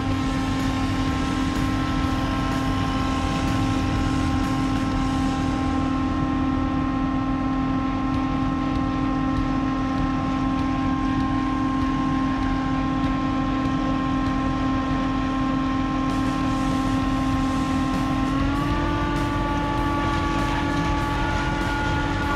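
An engine running at a steady high speed with a constant whine. About 18 seconds in it steps slightly higher in pitch and holds there.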